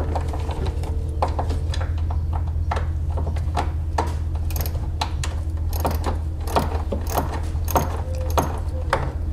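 Hand ratchet with a Torx T25 bit clicking in short, irregular runs as it backs out a screw, over a steady low hum.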